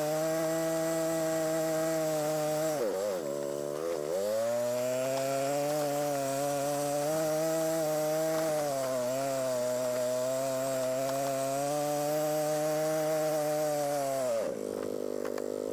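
Four-wheeler (ATV) engine running under steady throttle going up a trail, its pitch dipping and climbing back about three seconds in, then dropping to idle near the end as the machine stops.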